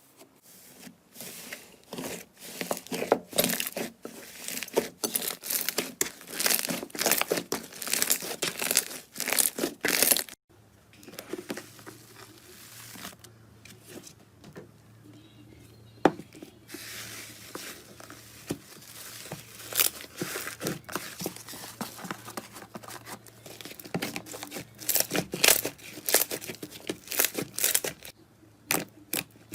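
Slime being squeezed and pressed by hand, giving dense runs of sharp crackling and popping. About a third of the way in it stops abruptly and gives way to a quieter stretch with a low hum and a single sharp click. Then the crackling and popping build up again.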